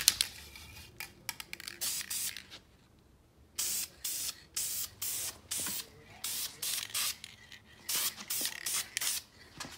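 Aerosol spray can of VHT high-temperature clear coat spraying in many short hissing bursts, with a pause of about a second partway through.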